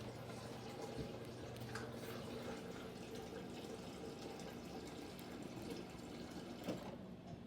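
Faint steady hum of a microwave oven running, with a few small clicks.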